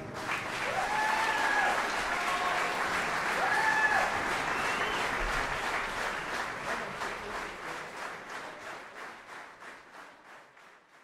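Concert audience applauding after the band's final chord, with two short shouts in the first few seconds; the clapping thins into scattered claps and fades out near the end.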